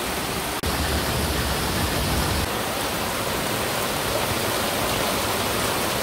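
Heavy rain pouring steadily onto the swamp water, an even hiss, with a brief break about half a second in.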